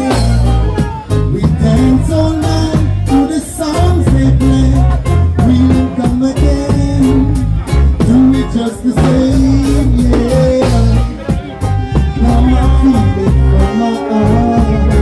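Live reggae band playing, with a heavy bass line and drums keeping a steady beat.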